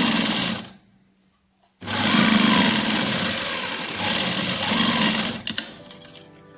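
Sewing machine stitching a seam in two runs: a short run, a stop of about a second, then a longer steady run of about three and a half seconds before it stops.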